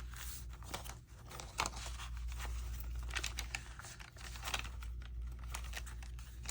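Paper rustling and crinkling, with small irregular taps and clicks, as journal pages are handled and pressed.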